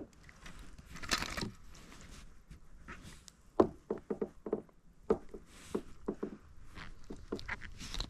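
Scattered light knocks and clicks of fishing gear being handled against a plastic kayak, with a short rushing noise about a second in.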